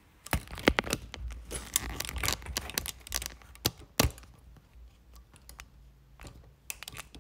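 Handling noise from a phone being moved and set in place: a busy run of clicks, taps and rustles with some low rumble, ending in one sharp knock about four seconds in, then only a few faint ticks.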